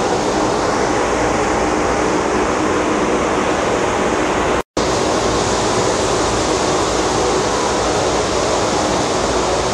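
Water treatment plant machinery running: a loud, steady rushing noise with a hum of several steady tones underneath. The sound cuts out for a split second about halfway through.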